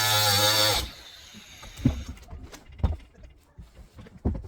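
Reciprocating saw cutting into a fiberglass boat hull, a steady motor whine with blade rasp that cuts off suddenly about a second in. Three dull knocks follow, about a second apart.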